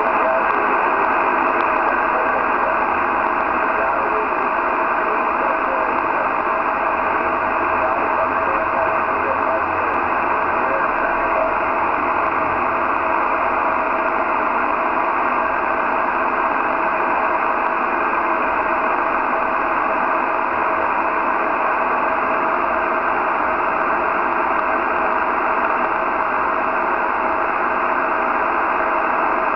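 Amateur radio transceiver receiving on the 6-metre band in upper sideband: steady receiver static with a weak sideband voice signal buried in the noise.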